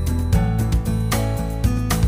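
Background music with a steady beat and pitched instruments, including guitar.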